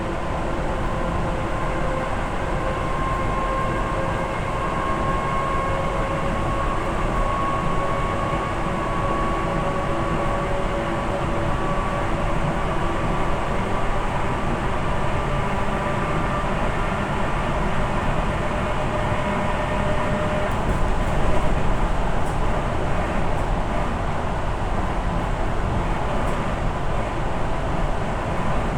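Train running along the track: a steady rumble and hiss with a faint whine that rises slowly in pitch through the first half and fades out about two-thirds of the way through.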